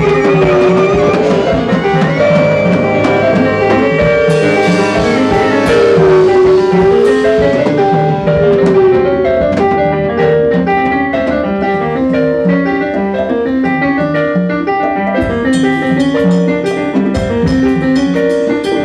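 Live jazz band playing: piano with drums, a wavering held horn note over the first few seconds, and cymbal strikes growing busier in the second half.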